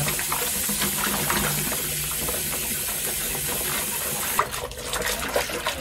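Tap water running steadily as soap is rinsed off a sneaker. About four seconds in, the flow stops abruptly, leaving small drips and splashes.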